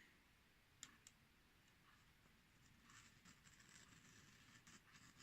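Very faint: two light clicks about a second in, then from about three seconds a soft, crackling rustle as a freshly sharpened knife slices through a sheet of paper to test its edge.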